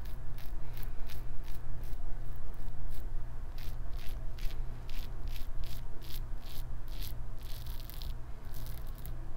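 Gillette Travel Tech double-edge safety razor with a Personna Lab Blue blade scraping through stubble on a lathered neck, in a quick series of short strokes, about two or three a second.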